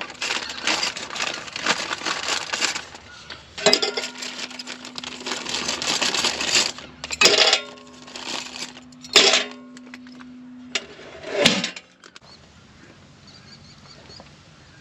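Steel hand tools clattering and clanking against each other and the metal as they are put into a homemade aluminum toolbox, followed by three separate louder metal clanks.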